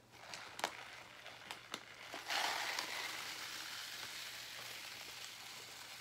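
Bird seed poured from a plastic bag into a rolled paper funnel in a plastic bottle: a few light taps, then a steady hissing rattle of seed streaming in from about two seconds in, slowly easing off.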